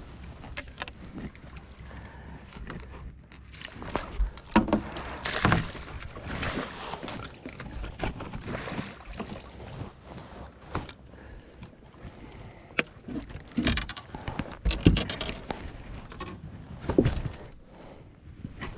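A hooked fish splashing at the side of a boat as it is reeled in and netted, mixed with rattles and clicks of the rod, reel and landing net and sharp knocks against the boat. The splashing is loudest about a third of the way in, with the hardest knocks near the end as the net comes aboard.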